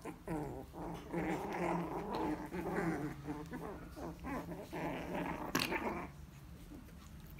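Lhasa Apso puppies growling as they play-fight, a near-continuous run of low, wavering growls that dies down about six seconds in. A sharp click comes shortly before the growling stops.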